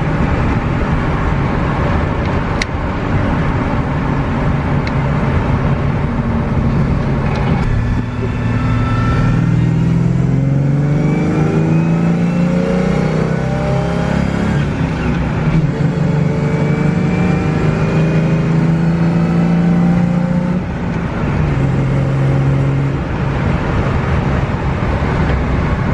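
Ford Foxbody Mustang's engine pulling under acceleration through the gears of its newly fitted T5 five-speed manual. Its pitch climbs steadily, dips at a shift about a third of the way in, climbs again, and drops at a second shift near 20 seconds before holding steady. It is noisy inside the gutted cabin, with the transmission right there.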